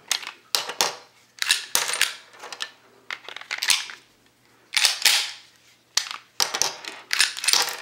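Slide of a Taurus G3C 9mm pistol being racked by hand again and again, chambering and ejecting live rounds: a series of sharp metallic clacks that come in small clusters every second or so.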